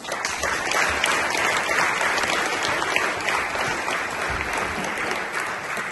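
Audience applauding: dense clapping that starts suddenly and eases off near the end.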